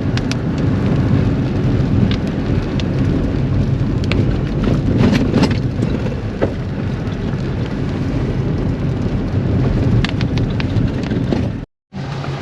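Rain falling on a moving vehicle, with steady engine and road noise underneath and scattered sharp ticks of drops. The sound cuts out briefly near the end.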